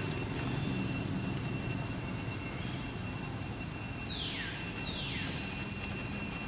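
Outdoor ambience: a low steady rumble under a continuous high-pitched buzzing drone, with two quick falling calls about four and five seconds in.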